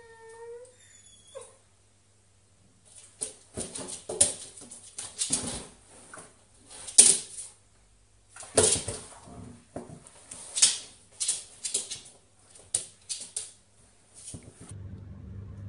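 A dog whines briefly with falling pitch. After a short pause come many irregular scratching and scuffing strokes as the dog paws and digs at its cushion bed and drags it across the floor.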